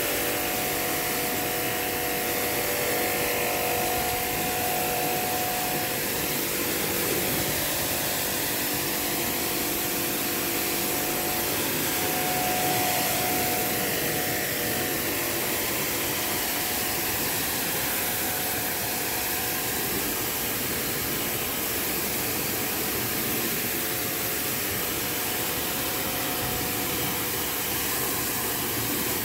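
Electric pressure washer running steadily, its water jet hissing as it sprays a motorcycle and the wet concrete beneath it, with a faint hum from the pump motor.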